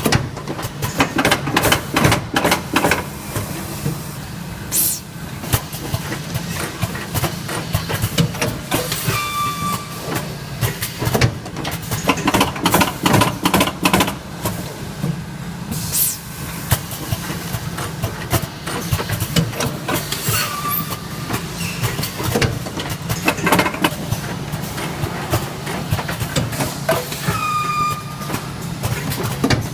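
Automatic weighing vacuum packing machine running: a steady hum under continual mechanical clatter, with a few short bursts of hiss and brief high squeaks that recur every ten seconds or so.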